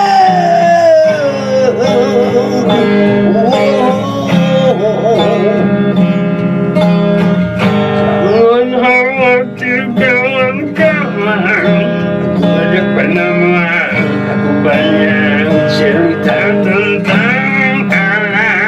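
A man singing with heavy vibrato while strumming an acoustic guitar. A long held high note near the start slides down into the next phrase.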